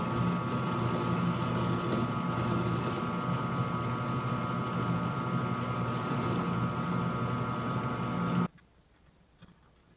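Grizzly G0750G metal lathe running under power on the final single-point threading pass on a 1-inch rebar bolt. Its geared headstock gives a steady whine while the tool takes a light cut of about five thousandths. The sound cuts off suddenly about eight and a half seconds in.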